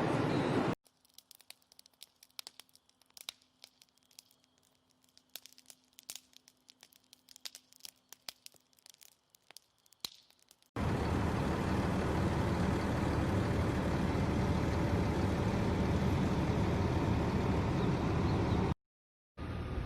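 Faint, scattered crackles and clicks for about ten seconds, then a loud, steady rushing noise with no pitch that cuts out briefly near the end.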